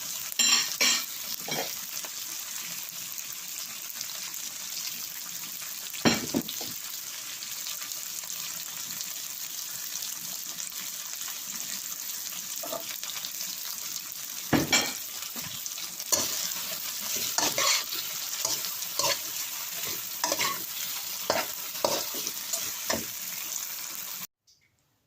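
Mackerel sautéing in a hot pan, sizzling steadily, while a spatula scrapes and knocks against the pan as the fish is stirred. The sound cuts off suddenly near the end.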